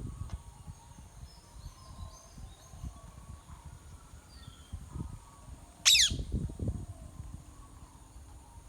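Rose-ringed parakeet chick giving one loud, harsh, falling screech about six seconds in, over faint distant bird calls and a low rumble.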